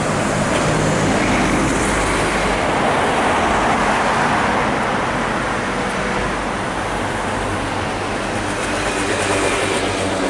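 Street traffic noise. A city bus passes close by, its sound swelling over the first few seconds and easing off into a steady hum of traffic.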